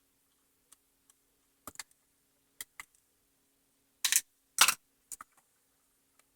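Scattered small clicks and taps of a screwdriver, screws and plastic parts being handled while the Roomba's bumper switch screws are taken out, with two louder knocks close together about four seconds in.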